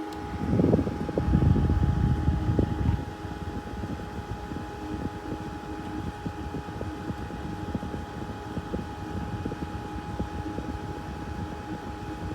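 Small USB evaporative air cooler's fan running: a steady motor hum, with low rumbling of the moving air on the microphone that is strongest for the first few seconds.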